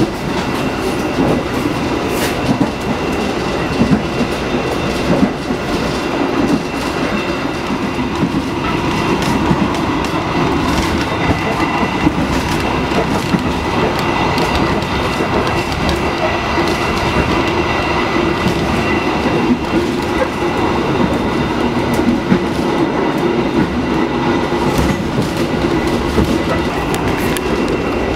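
Passenger coach of a 2016 INKA executive trainset running at speed, heard from inside the cabin: a steady rumble of wheels on rail, with occasional clicks over rail joints and a faint steady high tone.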